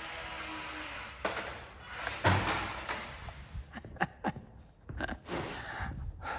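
Small RC plane's electric motor and propeller running steadily, cutting out about a second in. Then a sharp knock, a louder bang about two seconds in, and a series of lighter clatters and knocks as the light foam model crashes and tumbles.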